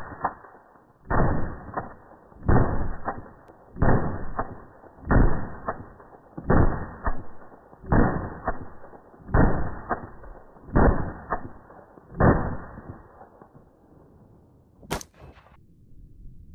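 Rifle shots through a muzzle brake, heard as deep, drawn-out booms repeating evenly about every second and a half, nine in all, with a single sharp click about 15 seconds in.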